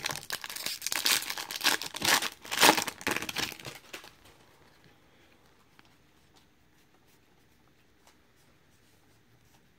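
A Bowman baseball card pack's foil wrapper being torn open and crinkled for about four seconds. After that there are only faint soft ticks of cards being handled.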